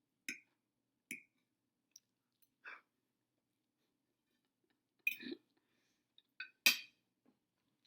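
A few faint, scattered clicks and light clinks, about eight short ones, with the two loudest about five and six and a half seconds in.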